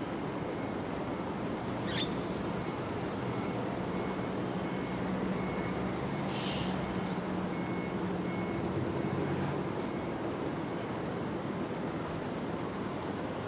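Steady rumble of distant traffic with a low hum, a sharp click about two seconds in and a brief high hiss about halfway through.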